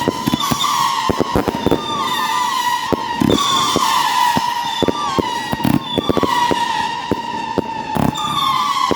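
Firework cakes firing whistling 'scream' shots mixed with salutes: many overlapping shrill whistles, each falling slightly in pitch, over a rapid run of sharp bangs.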